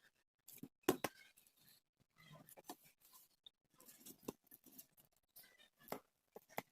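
Faint, irregular clicks and rustles of the art kit's contents and packaging being handled, with one sharper click about a second in.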